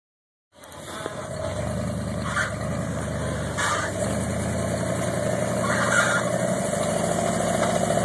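Rock crawler truck's engine running steadily at low revs as the truck crawls through a muddy ditch, growing slightly louder, with a few brief higher-pitched noises over it.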